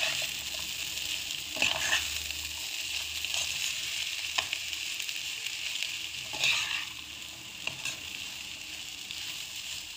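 Mashed boiled potato and chopped peppers sizzling in a pan of hot oil while a slotted metal spoon stirs them, with a steady hiss. The spoon scrapes the pan a few times, loudest about six and a half seconds in.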